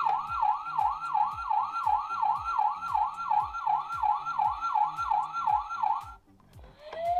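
Dickie toy ambulance's electronic siren sound effect playing through its small speaker: a fast yelp of falling sweeps, about three a second, that cuts off about six seconds in, then a rising wail starts near the end.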